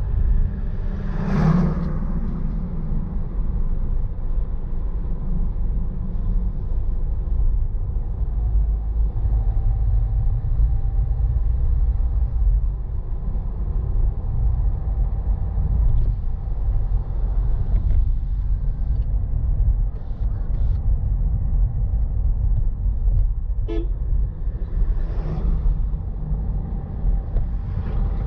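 A vehicle driving on an open road: a steady low rumble of engine and road noise. Oncoming vehicles whoosh past, a truck about a second and a half in and cars again near the end, and a short horn toot sounds a few seconds before the end.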